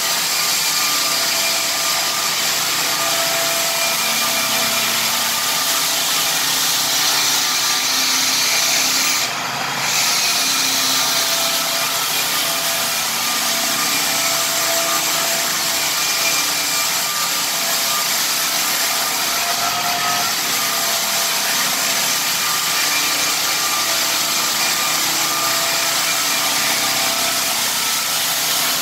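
Lägler Hummel drum floor sander running and sanding a rift-sawn red oak hardwood floor: a steady grinding rush of abrasive on wood with a steady machine whine over it. The sound dips briefly about nine seconds in, then carries on as before.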